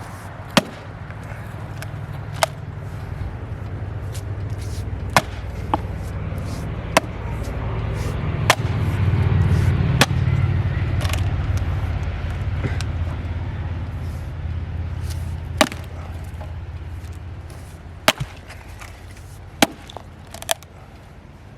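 John Deere 35G mini excavator's diesel engine running under load, rising to its loudest about halfway through and then easing off. About a dozen sharp, irregular cracks and knocks come through it as the machine works the stump's wood and roots.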